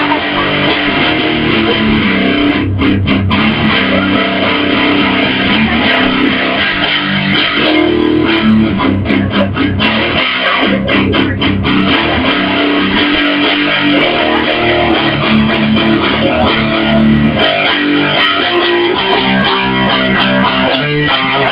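Instrumental rock music led by a strummed electric guitar with bass underneath, without singing.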